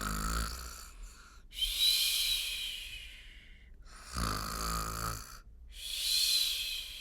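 A woman imitating a sleeping bear's snore: twice, a rattling snore on the in-breath followed by a long, whistling out-breath.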